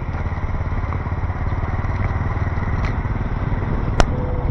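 Steady rumble of city street traffic, with motorcycles and cars running past. There is one sharp click about four seconds in.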